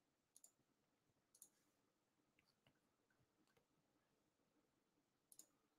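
Near silence, with a couple of very faint clicks.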